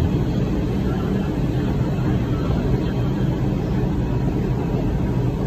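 New York City subway train running, heard from inside the car: a steady low rumble.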